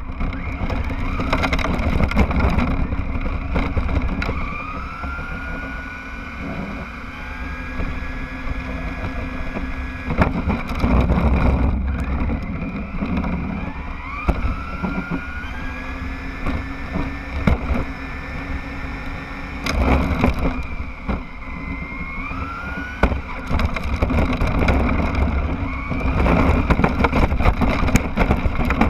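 Radio-controlled car driving with the camera on board: its motor and drivetrain whine rises in pitch and levels off each time it speeds up, about four times, over a steady rumble and rattle from the ground, with frequent sharp knocks and bumps.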